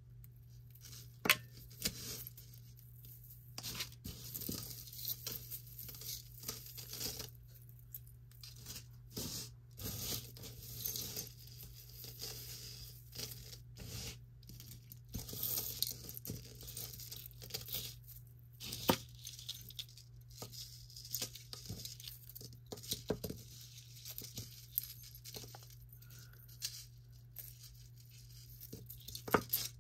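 Pieces of costume jewelry being pulled out of a box and handled: metal chains and trinkets clinking and rattling with rustling, in scattered irregular clicks, over a steady low hum.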